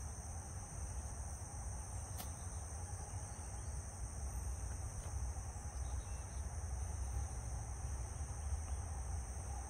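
Steady insect chorus, two unbroken high buzzing tones, over a low rumble.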